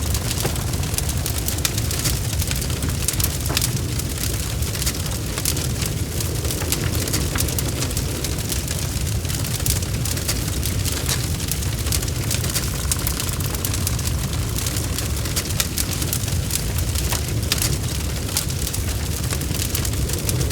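Fireplace fire crackling, with many sharp irregular pops over a steady low rumble.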